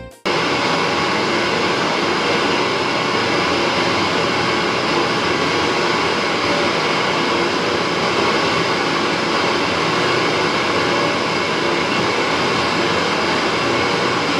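Steady rushing test noise, an even hiss across low and high pitches, starting abruptly right after the music cuts off and holding at one level without change.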